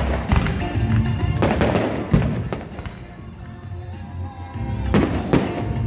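Fireworks shells bursting over music played through stadium speakers. Several booms come in the first two and a half seconds, with two more near the end.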